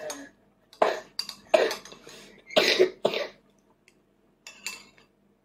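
A toddler coughing in a run of short coughs, about six or seven over a few seconds, choking a little on a mouthful of food.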